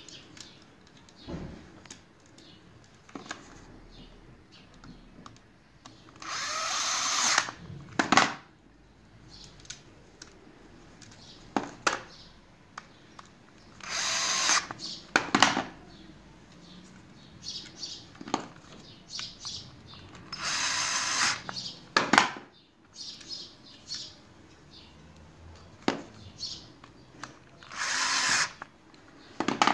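Cordless screwdriver driving battery terminal screws in four short runs of about a second each. Small clicks and knocks from handling the wire and screws come between the runs.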